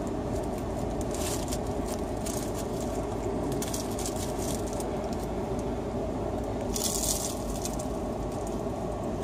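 Flaky napoleones pastry and its paper crinkling as it is picked out of a cardboard box and bitten, with a louder crinkle about seven seconds in, over the steady hum of a car interior.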